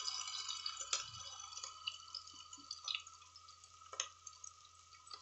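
Sliced onions and whole spices frying in oil in a pressure cooker pot while being sautéed until brown: a soft sizzle with scattered small pops and ticks. A steel spatula stirs briefly at the start, then the sound dies down to a faint sizzle.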